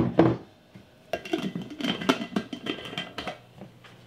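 Lid being screwed back onto a glass mason jar of milk: a couple of sharp knocks at the start, then a quick run of scraping clicks from the threads for about two seconds.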